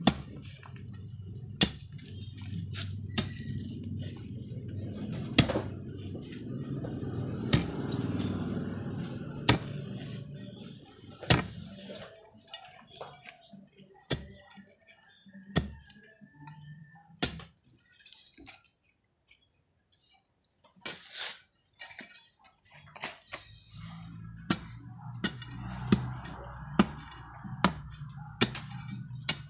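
Metal digging tool knocking into hard soil around an ube tuber: sharp knocks at irregular intervals, one every second or two, with rough scraping of earth in the first third and again near the end.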